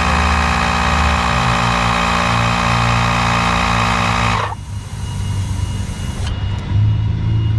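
Air being pushed into natural gas piping for a pressure test: a loud, steady hiss with a machine hum that cuts off abruptly about four and a half seconds in, as the test gauge comes up to pressure. A low engine-like rumble continues after it.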